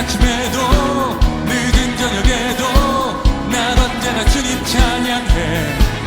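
Live worship band of piano, electric guitar, bass and drums playing a steady upbeat groove, the kick drum landing about twice a second, with a wavering sung melody over it.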